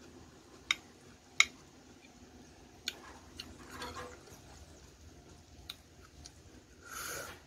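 Metal spoon clinking and scraping against a plate while scooping rice and curry: a handful of sharp separate clinks, the loudest about a second and a half in, with a short rush of noise near the end.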